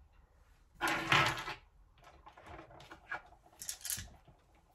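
Stones being handled and knocked together: a loud scraping clatter about a second in, then a run of lighter clicks and rattles.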